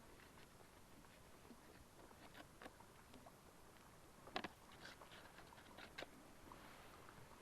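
Near silence with scattered faint clicks and light knocks, the sharpest about four seconds in and another near six seconds.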